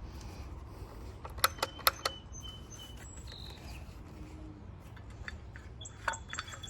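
A few sharp clicks about a second and a half to two seconds in, from the circular saw being handled, over a low steady hum with faint bird chirps in the background.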